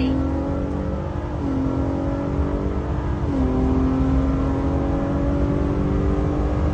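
Ford Raptor's twin-turbo 3.5 L EcoBoost V6 at full throttle on a quarter-mile run. The automatic upshifts several times, the engine note stepping down at each shift and climbing slowly between shifts.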